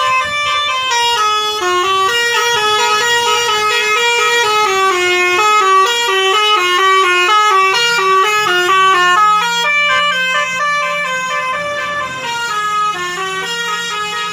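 Indonesian bus telolet horn, a multi-tone musical air horn, playing a fast melody of short notes that step up and down in pitch. A low steady hum joins in about eight seconds in.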